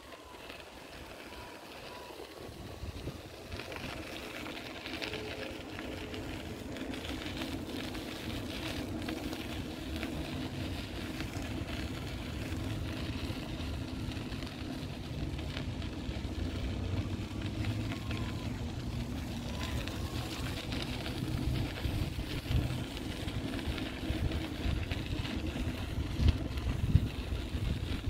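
City street ambience: a steady engine hum from a vehicle close by, growing gradually louder, over a noisy traffic rumble. A few sharp knocks stand out, the loudest near the end.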